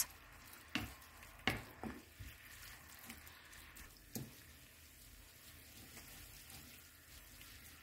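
Rice noodles being tossed with a wooden spatula in a pan of hot seasoning liquid: faint sizzling, with a few soft knocks of the spatula against the pan in the first two seconds and once more about four seconds in.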